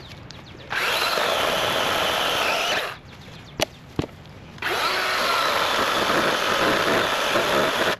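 Electric chainsaw running in two bursts, about two seconds and then about three seconds long, cutting into a fallen log, with a couple of sharp clicks in the pause between them.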